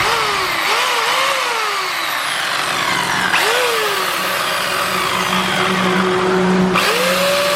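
Ryobi CS-3000 electric chainsaw running unloaded, its motor and chain spinning up three times as the trigger is squeezed, the pitch rising and then falling away each time.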